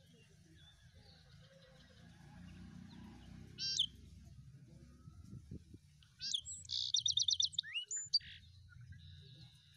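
A small bird calling: a short high chirp a little under four seconds in, then a burst of whistled notes with a quick trill from about six to eight seconds, over a faint low steady hum.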